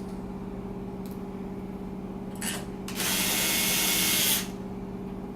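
Power drill/driver briefly run, then run steadily for about a second and a half, driving in a screw of the lock's mounting plate.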